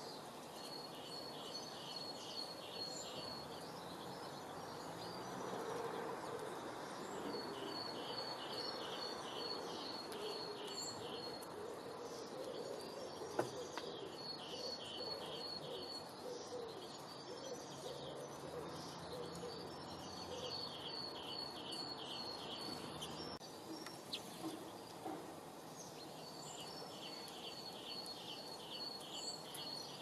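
A small songbird repeating a fast, high trilled phrase of a few seconds every five or six seconds, over a steady background hiss, with one sharp click near the middle.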